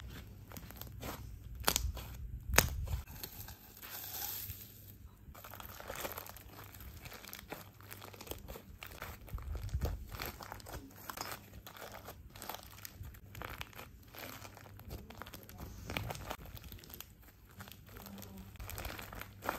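Slime being squished, pressed and pulled by hand, a steady run of sticky crackles and small clicks, with two louder snaps about two seconds in.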